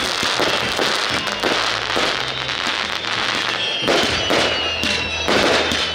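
Aerial fireworks going off: a dense crackle at first, then sharp separate bangs in quick succession from about three and a half seconds in, with music playing underneath.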